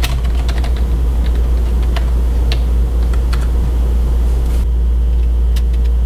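Computer keyboard keys clicking in a short, uneven run as a debugger command is typed, over a steady low hum.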